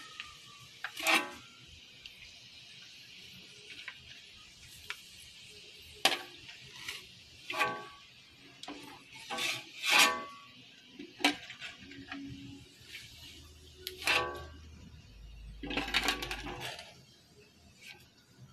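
Marinated pork deep-frying in hot, foaming oil: a steady high sizzle, broken a dozen or so times by sharp, ringing pops and clinks.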